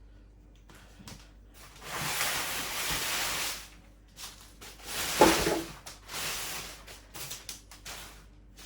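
Packaging being pulled off a new washing machine: two long rustling, tearing stretches of plastic wrap, the second ending in a sharper crackle, with a few light clicks between.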